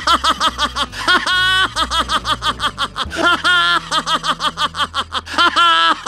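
A small cartoon pest's high-pitched voice cackling: a fast, even run of short 'heh' syllables, about eight a second, over a low bass line of music.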